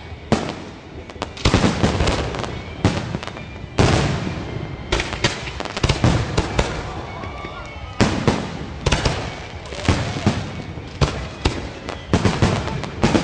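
Fireworks display: a dense run of bangs and crackling shell bursts, with heavier volleys at about a second and a half, four, eight and twelve and a half seconds in.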